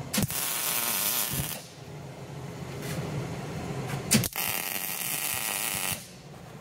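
MIG welder running on argon–CO2 mix, laying two short tack welds: each a crackling, hissing arc of about a second and a half that starts with a click, the first just after the start and the second about four seconds in.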